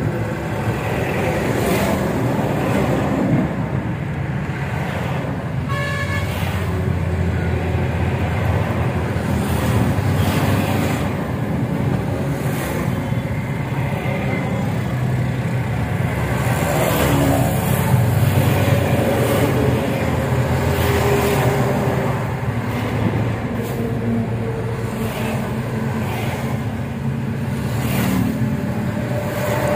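Road traffic: a vehicle engine running steadily, with a few short horn toots.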